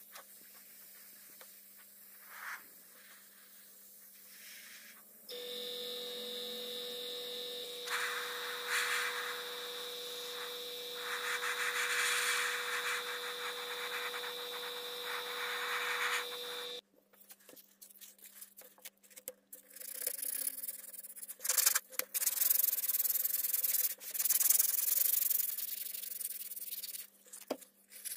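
An airbrush compressor runs steadily with a hiss of air over it. Then, after a sudden change, sandpaper rubs in quick irregular strokes on the painted steel rim of an M40 helmet, wearing through the fresh paint.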